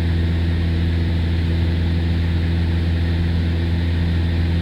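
Aircraft engine drone heard inside the cabin in level flight: a steady, unchanging hum with several low tones held constant.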